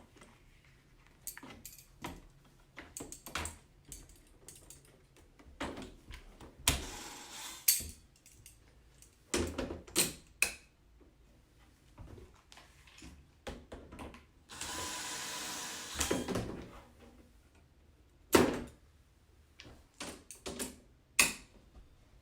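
Hand-assembly clicks and knocks as fittings are pushed onto the ends of aluminum rods on a pen frame, with one scraping sound lasting over a second about two-thirds of the way through.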